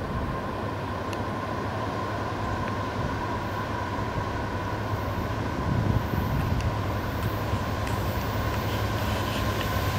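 Union Pacific diesel-electric freight locomotives running, a low engine rumble that grows louder about halfway through as the double-stack train comes closer, with a steady high tone over it.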